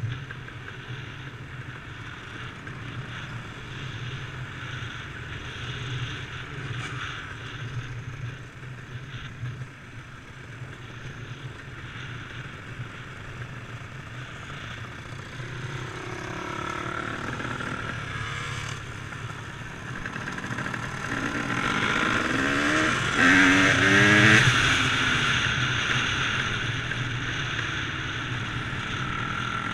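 Dirt bike engine running at low revs along a gravel track, then accelerating, its pitch rising twice from about halfway through and loudest a little after two-thirds of the way in.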